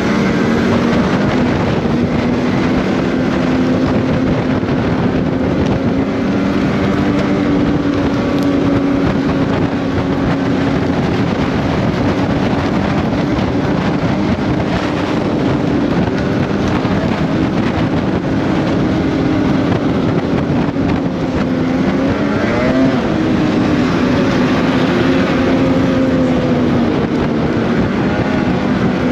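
Snowmobile engine running steadily at speed, with a brief dip and rise in revs about two-thirds of the way through.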